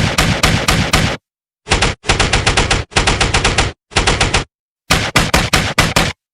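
Rapid automatic gunfire in about five bursts of several shots each, roughly eight to ten shots a second, with abrupt dead-silent gaps between the bursts.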